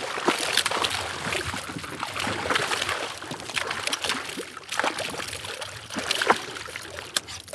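Hooked northern pike thrashing and splashing at the water's surface right beside a kayak, in irregular bursts. A sharp splash about six seconds in comes as it goes into the landing net.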